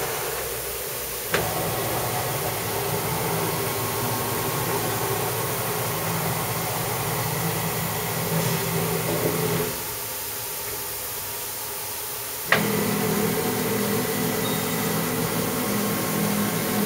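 Steady hum and hiss of an automatic semiconductor wet-bench cleaning machine running while its transfer robot arm moves a wafer cassette into a process tank. A sharp click comes about a second in and another about twelve and a half seconds in, each followed by a change in the hum, with a quieter stretch just before the second click.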